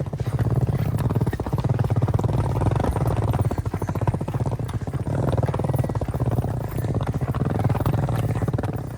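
Small hard wheels rattling fast and steadily over paving, like a wheeled suitcase being pulled along, with short lulls in the rolling.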